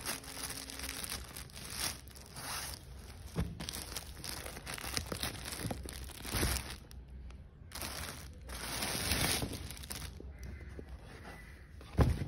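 Clear plastic wrapping around a silk saree crinkling and rustling in irregular strokes as the saree is handled and lifted out of its box, with a sharp knock near the end.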